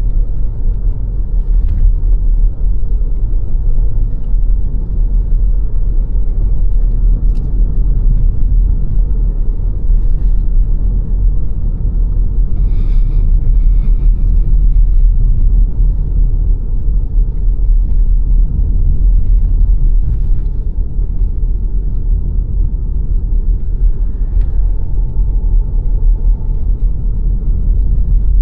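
A car driving along a road: a steady low rumble of tyres on the road surface and the running engine. A faint, brief higher-pitched sound comes about halfway through.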